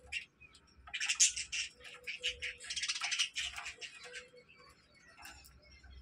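Budgerigars chirping and chattering in rapid high-pitched bursts, loudest about a second in and again around three seconds in, thinning to scattered faint calls in the last two seconds.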